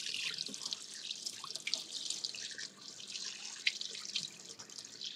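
Cold water running from a tap into a stainless steel sink as a gutted mackerel is rinsed under it, splashing unevenly off the fish and hands to wash out the blood and remaining guts.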